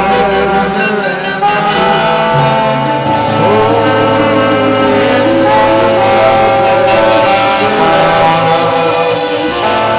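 Rock music with guitar and steady bass notes.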